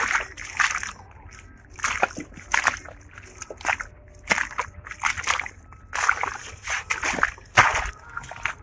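Footsteps squelching and splashing through a wet, muddy furrow between strawberry beds, one wet step about every half second to second.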